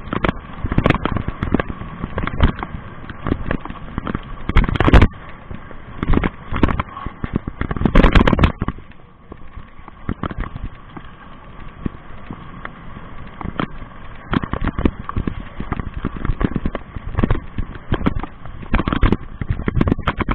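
Homemade 1500 W electric mountain bike ridden fast over a bumpy dirt trail: a dense, irregular crackle of knocks and rattles as the bike jolts. Heavy thumps come about five and eight seconds in, and a steady high whine runs underneath.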